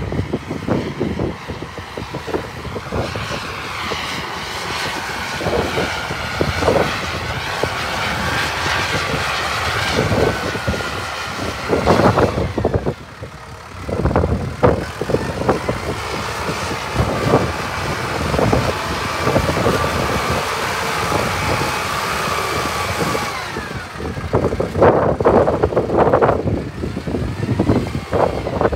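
Diesel engine of a cab tractor with a front loader running as it drives around on gravel, its pitch rising and falling with engine speed. Irregular low rumbles of wind hit the microphone throughout.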